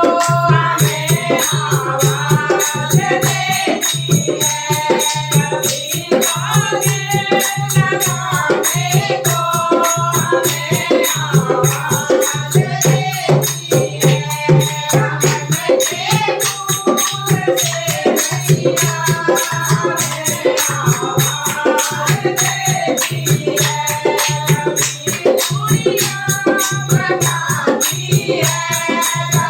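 Hindu devotional bhajan: sung melody over a fast, steady rattling percussion beat.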